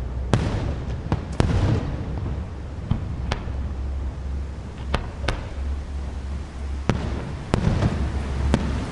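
Fireworks display: aerial shells bursting in a string of about ten sharp bangs at irregular intervals, over a steady low rumble.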